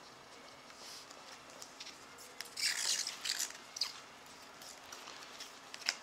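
Trading card pack wrapper crinkling and cards being handled: a short burst of crinkly rustling a little over two seconds in, then a few light clicks.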